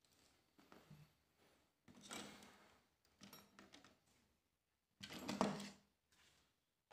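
Faint handling noises on a repair bench: short scrapes and rustles, two louder ones about two seconds in and about five seconds in.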